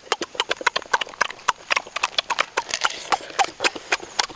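Cooked crab being broken apart and eaten by hand: a quick, continuous run of sharp clicks and cracks from the shell and claws, several a second.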